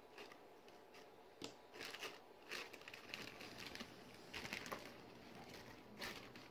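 Small hard-plastic Playmobil toy parts being handled: a scatter of light clicks and short rustles, the strongest about a second and a half, two and a half, four and a half and six seconds in.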